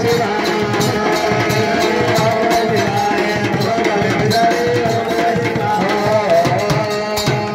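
Live devotional kirtan music: voices singing a chant to a steady beat on hand drums, with hand-clapping.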